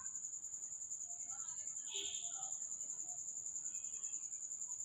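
Steady high-pitched insect trill, pulsing rapidly without a break.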